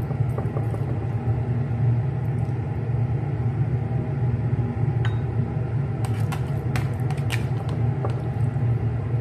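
Steady low hum of a running machine, with a few light clinks of a utensil against a ceramic bowl as food is spooned into it, from about five seconds in.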